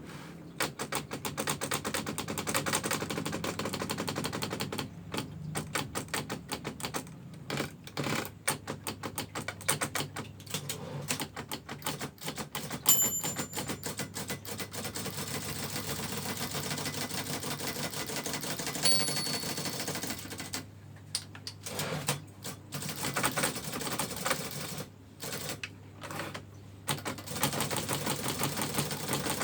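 Brother manual typewriter being typed on in fast runs of key strikes, with short pauses between bursts. Twice a short high ding sounds, the margin bell near the end of a line.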